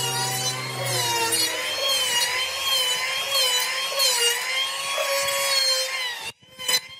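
Corded electric hand planer running along the edge of a wooden board, its motor whine wavering in pitch as the blade takes shavings. It cuts off sharply about six seconds in, followed by one short burst of sound.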